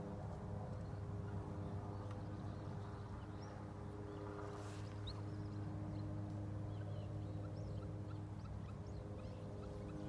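Steady low machine hum, with faint scattered chirps of small wild birds and a short noisy burst about halfway through.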